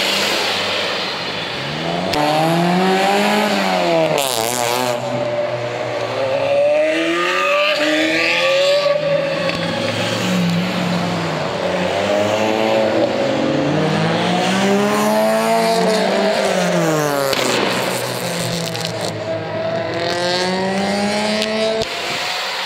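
A car engine revved hard again and again, its pitch climbing and falling in about five long swells.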